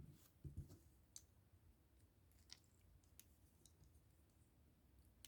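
Near silence broken by a few faint plastic clicks and taps, most of them in the first three seconds, as wing pieces are fitted onto a Mega Construx building-brick dragon figure.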